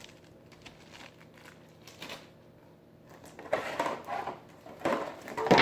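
Plastic parts bags and kit parts being handled, crinkling and clicking in irregular short bursts, loudest near the end.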